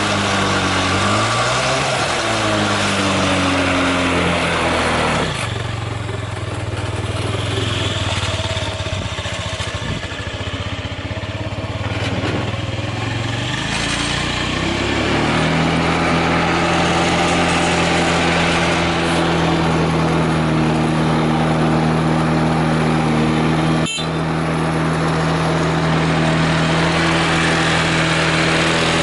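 A carbureted Honda Zoomer AF58 scooter's 49 cc four-stroke single-cylinder engine running. It is revved up and down a few times, then settles at a low idle, and about halfway through it steps up to a steady, higher engine speed. The engine runs with no abnormal noises, and there is a short click near the end.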